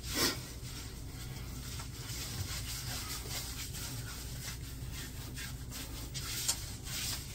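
Hands scrubbing shampoo into a dog's short wet coat: a soft, steady rubbing with faint scattered rustles.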